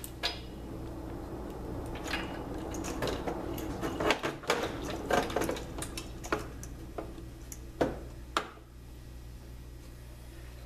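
Irregular clicks, clinks and light knocks of small metal parts and fittings being handled inside an opened Saeco Magic Deluxe espresso machine, as hardware is moved over to its boiler, above a steady low hum. The clicking is busiest through the middle and thins out near the end.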